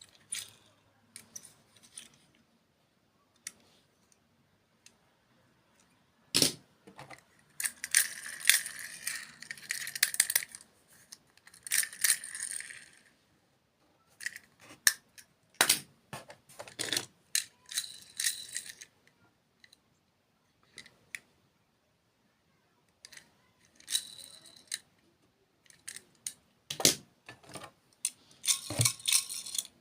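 Close-up handling noises: scattered sharp clicks and taps, with several stretches of crinkly rustling, the longest about a third of the way in.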